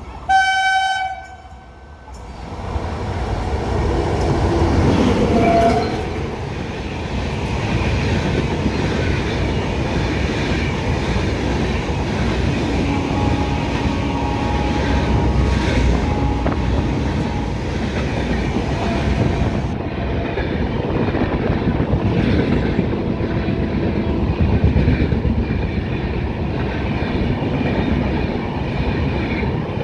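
A WAP-7 electric locomotive's horn sounds one short blast of about a second. Then the Howrah–Tirupati Humsafar Express passes at speed without stopping, with a steady loud rumble and clatter of wheels on the track.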